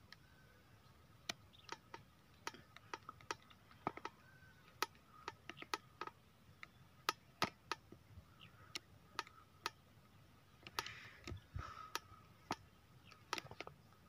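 Faint, irregular sharp clicks and ticks, more than a dozen scattered unevenly, over a faint steady high-pitched tone.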